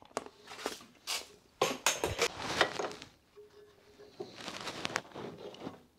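Steel sockets and hand tools clinking and knocking as a socket is swapped and fitted onto a rusty nut, with scattered sharp clicks and a short rasping scrape about four seconds in.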